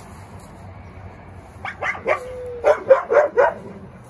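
Wolf dog giving a quick run of sharp barks and yips, about seven in under two seconds after a short quiet start, with a brief held whine after the third; a warning as she defends her bone.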